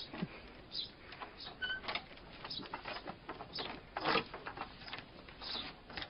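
A dog's paws scuffling and tapping on the wooden boards and door frame of a shed doorway, in scattered light knocks that are strongest about four seconds in. There is a brief high chirp about a second and a half in.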